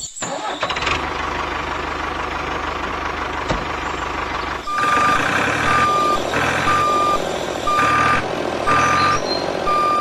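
A vehicle engine runs steadily. About five seconds in, a reversing alarm starts beeping over it, about once a second, as the vehicle backs up.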